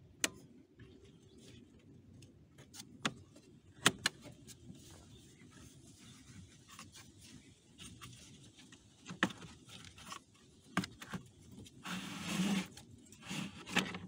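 Plastic clicks and knocks as the BMW X5 E53's cabin air filter housing and filter are handled, then a scraping rustle near the end as the pleated filter is slid out of its housing.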